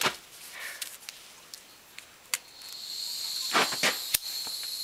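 Bernzomatic gas plumber's blowtorch: after a few light clicks its gas starts to flow about three seconds in, and it hisses steadily with a high whistle. A couple of knocks and a sharp click come near the end as the torch is handled.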